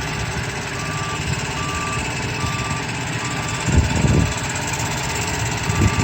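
Reversing alarm of a road-sealing work truck beeping about once a second over its steady running engine, with a couple of low gusts of wind buffeting the microphone.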